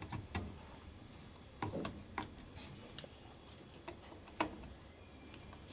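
A handful of light, sharp clicks and taps, irregularly spaced a second or so apart over a faint background.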